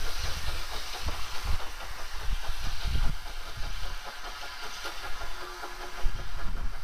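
Small industrial steam locomotive working along the yard with a brake van, its steam and exhaust giving a steady hiss over low irregular rumbles and knocks.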